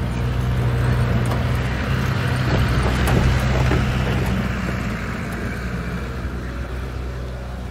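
Open military jeep driving, its engine running with a steady low hum and road noise. The noise swells to its loudest about three seconds in, with a few rattles, then eases off.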